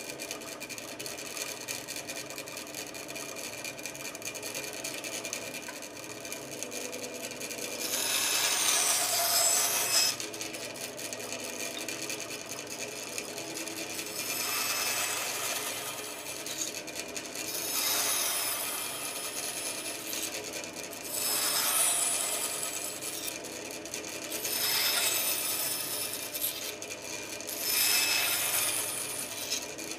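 Bandsaw running steadily while its blade cuts into a small block of timber six times, each cut a brief rasping stretch of about two seconds over the motor's hum.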